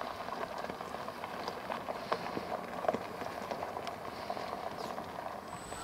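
Large off-road tyres of a Mercedes-Benz EQC 4x4² electric SUV rolling slowly over loose gravel: irregular crunches and small clicks of stones under the tread.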